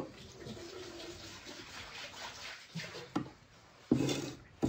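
Cleaver chopping through a crisp sesame-and-nut slab onto a wooden board: a few separate knocks, most of them in the second half.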